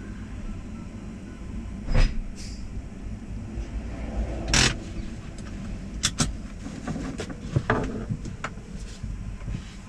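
Semi truck idling with a steady low hum, heard from inside the cab, with several sharp knocks and clicks from things being handled in the cab, the loudest about two seconds in and near the middle.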